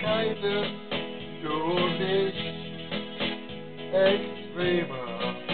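Electronic keyboard playing a Schlager melody over its built-in rhythm accompaniment, with a steady beat about twice a second, and a man singing along.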